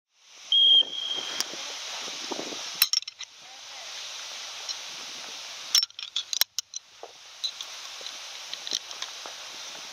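A short high electronic beep about half a second in, then scattered metallic clicks and clinks of a Pistol 88 (Glock 17) being assembled by hand, slide, barrel and spring being handled and fitted, over a steady hiss.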